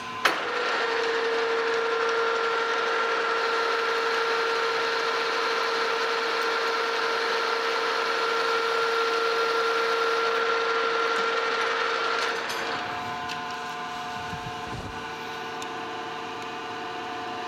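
Metal lathe taking a light finishing cut on the outside diameter of a gear blank: a steady cutting noise over the machine's running tones, starting with a click just after the start. The cut stops about twelve seconds in, leaving the lathe's quieter steady hum, with a few low knocks a couple of seconds later.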